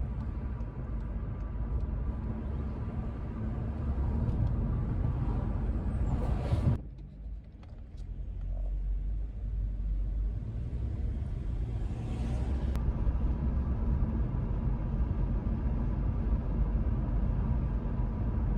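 Steady low rumbling noise, dipping briefly about seven seconds in.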